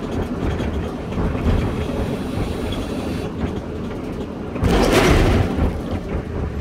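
A person blows out a long exhale of vape vapour about four and a half seconds in, lasting about a second, after drawing on a vape pen. Under it runs a steady low rumble.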